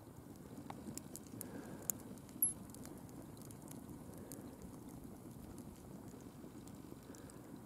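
Faint crackling of a wood campfire: scattered sharp ticks and pops over a low steady hiss, with one louder pop about two and a half seconds in.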